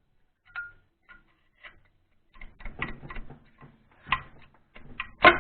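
A series of sharp, irregular taps and knocks on the Moskvich-412 engine's sealant-glued timing-chain side cover as it is knocked loose. The taps get heavier toward the end, with the loudest knock just before the end.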